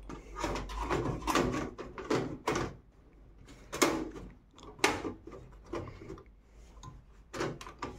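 A motherboard being fitted into a metal PC cabinet: irregular clicks, knocks and scraping of the board and its metal case, the sharpest knocks about four and five seconds in.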